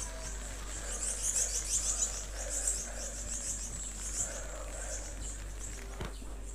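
Rapid high crackling and fizzing of fireworks and sparkler fountains among burning flares in a football stand, strongest in the first few seconds, with one sharp bang near the end.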